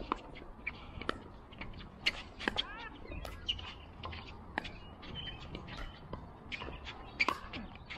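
Pickleball paddles hitting a plastic ball in a doubles rally of soft shots at the net: sharp pops roughly once a second, uneven in loudness.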